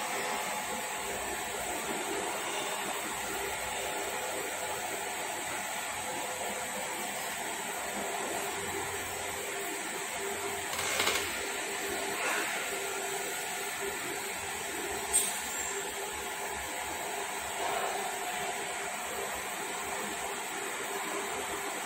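Steady whirring background noise with a faint hum, broken by a few light knocks and one sharp click about fifteen seconds in.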